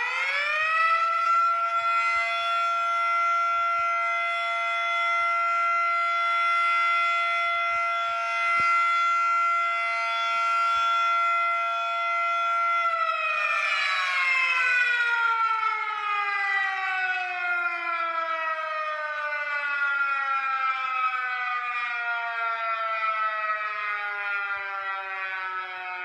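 Fire siren sounding several tones at once. It finishes rising to full pitch in the first second and holds steady for about twelve seconds. Then it winds down in a long, slow falling glide.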